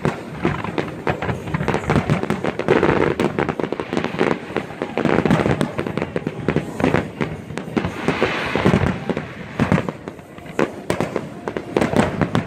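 Fireworks display: a rapid, continuous run of sharp bangs from bursting shells, several a second, with a spell of hiss about eight seconds in.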